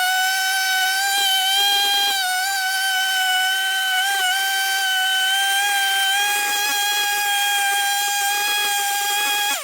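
Husqvarna 395XP two-stroke chainsaw held at full throttle in a chainsaw mill, ripping through an olive log with a steady, high-pitched whine that wavers slightly under load. Right at the end the pitch falls sharply as the throttle is let off.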